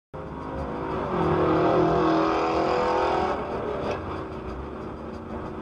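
A car driving on a highway: steady road and engine noise, with a loud steady tone held for about two seconds from about a second in, and a short click near the end.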